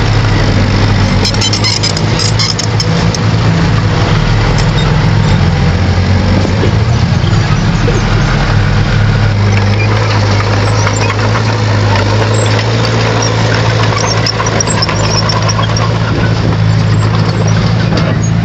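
Bulldozer's diesel engine running steadily and loud, its pitch shifting slightly a few times, with light metallic clicking over it.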